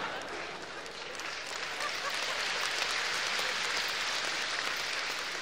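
Large theatre audience applauding with laughter, a dense steady clapping.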